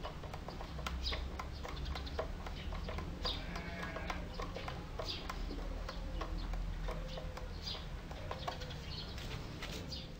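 Scattered light clicks and knocks of hands working the wooden drill press stand, the drill not running, with birds calling in the background.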